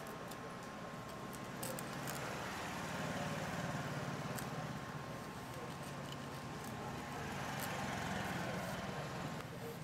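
A steady low mechanical hum, with a thin steady high tone over it that stops near the end.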